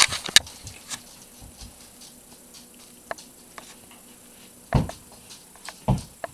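Handling noise from a camera held close: a few sharp clicks and rustles at the start, scattered faint ticks, then two short low thumps about a second apart near the end.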